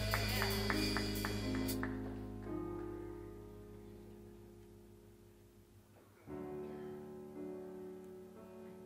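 Worship band ending a song: a cymbal ring with a run of light taps stops sharply about two seconds in, while a held keyboard chord fades away almost to silence. About six seconds in, the piano begins again with soft, slow chords.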